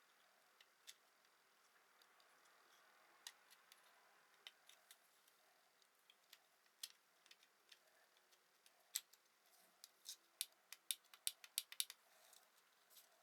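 Small sharp clicks and taps from handling a multimeter's plastic parts: scattered at first, then coming quicker and louder toward the end.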